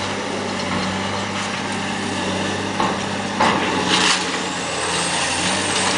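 Caterpillar demolition excavator's diesel engine running steadily, with a few short crunching knocks of demolition between about three and four seconds in.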